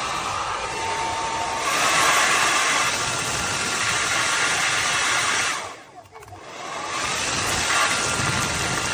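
AINA ionic hair dryer running with a steady rush of air. It gets louder a couple of seconds in, dies away briefly a little past halfway, then builds back up to full blow.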